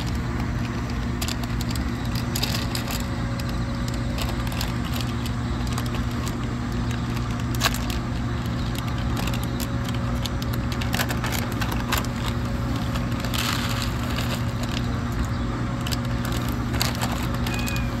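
Crinkling, crackling and tapping of plastic food packaging and foam trays being handled on dry grass, with scattered irregular clicks, over a steady low hum.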